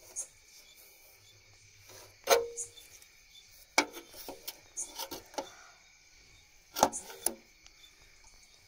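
Sharp knocks and rattles of a metal motor-starter box and its capacitors being handled. Three knocks stand out, about two, four and seven seconds in, with smaller taps between them and a brief ring after the first. A steady high chirring of night insects runs underneath.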